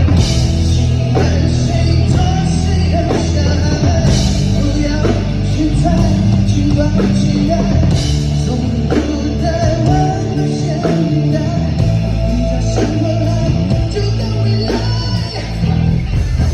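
A rock band playing at full volume, with a five-string Fodera electric bass holding sustained low notes that change every second or two under drums and other instruments.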